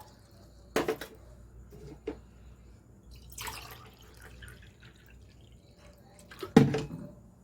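Water poured from a cup into a saucepan, a cupful at a time: a few separate short splashes and pours, the loudest near the end.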